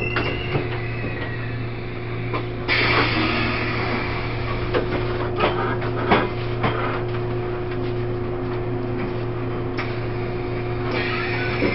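Inside a coach of a Taiwan Railways E1000 push-pull express train: a steady low hum with a constant tone above it, and a hiss of air that comes in about three seconds in, cuts off shortly before the end and returns, with scattered light clicks and knocks.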